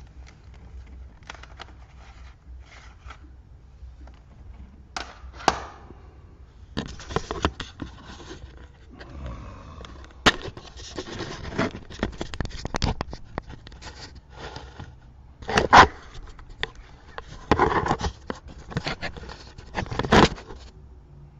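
Irregular scraping, rustling and knocking of handling close to the microphone as a cardboard box of plastic CD cases is dug through and the camera is moved, with a few sharper knocks near the end.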